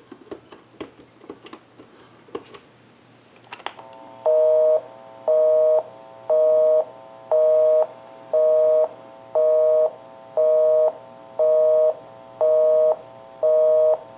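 A few faint clicks as the number is dialled, then a telephone busy signal: a two-tone beep, on for half a second and off for half a second, repeating about once a second. It shows that the called line is busy.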